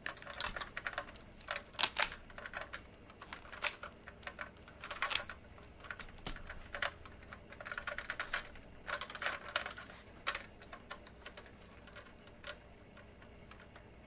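Irregular clicks and snaps of a hand wire stripper and wire being worked as insulation is stripped from the wire ends, in clusters for the first ten seconds or so and sparser after. The stripper has a burr, so the plastic is hard to pull off.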